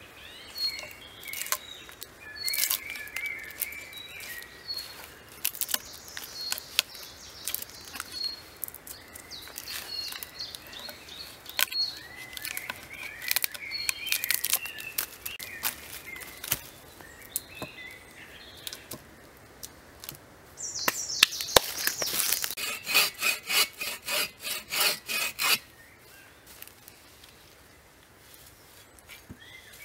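A knife blade scraping and peeling bark from a wooden log in irregular strokes, with a fast run of rhythmic scraping strokes about two-thirds of the way in. Birds chirp now and then.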